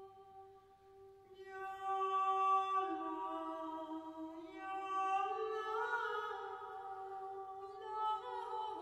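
Choir singing in sustained chords: a quiet held note, joined by fuller voices about a second and a half in, with the harmony shifting slowly every couple of seconds.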